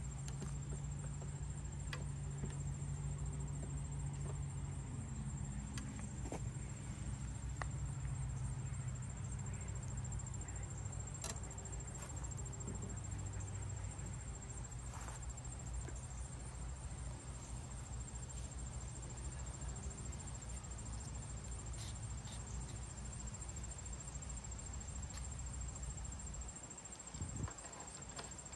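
A steady low hum from an unseen motor under a steady high-pitched insect buzz, with a few faint clicks and taps; the hum stops about 26 seconds in.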